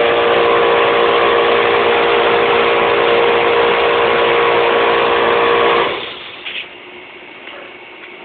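Air compressor running steadily with a hum, then cutting off abruptly about six seconds in.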